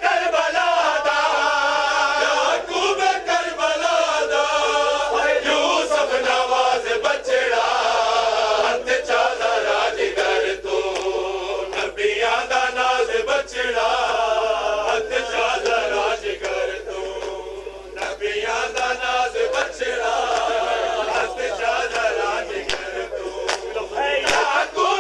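Men's voices chanting a noha, a Shia mourning lament, together with a crowd, over the sharp slaps of bare-handed chest-beating (matam). The chanting dips briefly about two-thirds of the way through.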